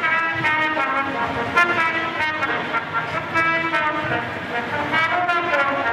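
A trumpet played live through a PA, a run of held notes that step up and down in pitch.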